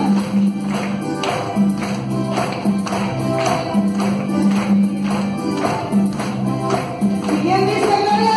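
Live Catholic praise music in an instrumental passage between sung lines: keyboards play a steady bass line under a percussive beat of about three strokes a second. Singing comes back in about a second before the end.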